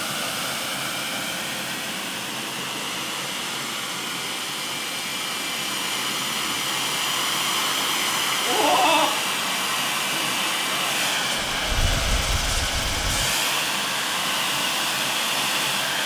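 Dyson Supersonic hair dryer converted into a small gas-fired jet engine, running with its fuel turned up: a steady rushing hiss with a high whine. About twelve seconds in, a low rumble joins it for a second or two.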